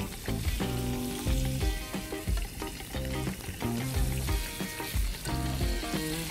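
Thinly sliced beef brisket frying in hot cooking oil in a pot. The steady sizzle starts as the first slices hit the oil.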